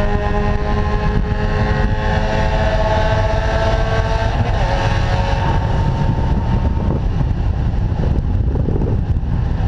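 Spec Miata's four-cylinder engine heard from inside the cockpit, its revs dropping slowly as the car slows, over heavy wind and road rumble. The engine note fades into the rumble about seven seconds in.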